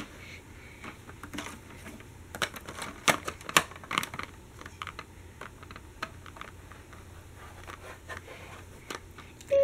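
Light plastic clicks and taps from the Paw Patrol Lookout toy playset as a child handles its red elevator platform and small plastic pieces. The clicks come irregularly, with the loudest cluster about two to four seconds in.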